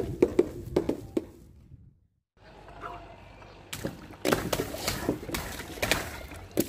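Water balloons filled with coloured water hitting concrete from a height, bursting and splashing in a series of sharp splats. The sound drops out completely for a moment about two seconds in, then several more bursts follow.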